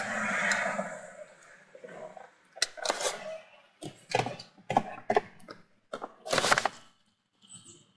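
A rumbling noise fades out in the first second, then come a dozen or so sharp, irregular knocks and clicks over about four seconds.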